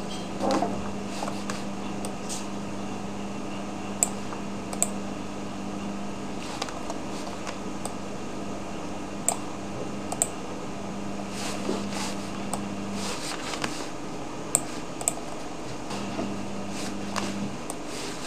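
Computer mouse clicking a few times, the clicks often coming in close pairs, over a steady low electrical hum that cuts out about two-thirds of the way through and briefly returns.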